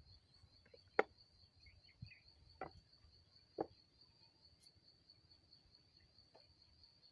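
A few sharp knocks from hand work on an irrigation pump's pipe fitting, four within the first four seconds, the first the loudest, and a faint one later. Underneath, a steady high insect trill.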